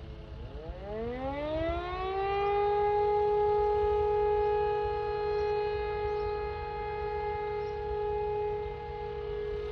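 E57 electromechanical civil-defence siren spinning up: its pitch rises for about two seconds and then holds one steady tone at full speed. A constant low rumble sits underneath.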